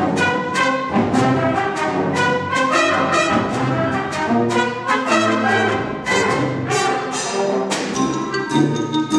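A high school wind ensemble playing, brass to the fore with woodwinds and percussion, in a fast passage of short, sharply accented notes several times a second.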